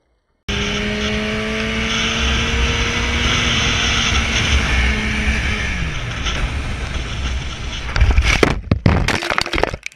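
Sport motorcycle ridden fast, heard from the rider's position: heavy wind rush over a steady engine note that drops in pitch about halfway through. About two seconds before the end comes the crash, a run of loud knocks and scrapes as the bike goes down onto gravel.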